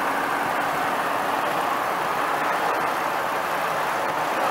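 Steady road noise from inside the cabin of a vehicle driving on the highway: tyres and engine running with no change in pace.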